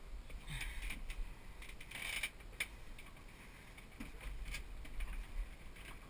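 Rustling and clicking of dive gear and clothing being handled and shifted about, with a few sharper clatters around half a second and two seconds in, over a low steady rumble.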